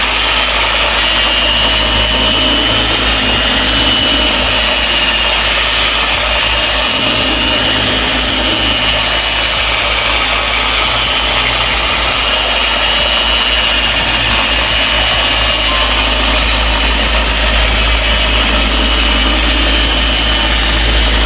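Rotary car polisher with a foam refining pad running steadily against car paint, a constant motor whine with a steady high tone.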